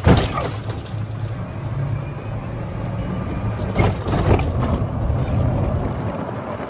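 Golf cart driving along with a steady low motor hum, jolted by a couple of knocks and rattles at the start and about four seconds in.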